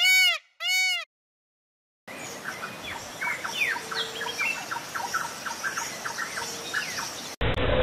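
Two loud arched calls from a peacock (Indian peafowl) in the first second. After a short silence comes a background of many small birds chirping and twittering.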